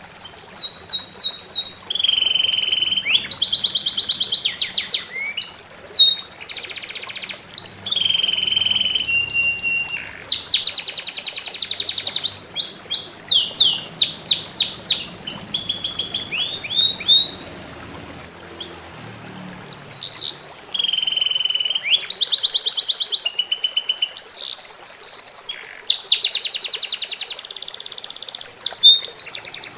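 A songbird singing loudly in long, varied phrases of fast trills, repeated notes and sliding whistles, with short pauses between phrases, over a faint steady hiss of trickling water.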